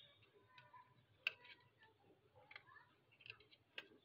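Faint handling clicks as a Nabi Z7 kids' smartwatch is taken out of its box, with two sharper clicks, about a second in and near the end.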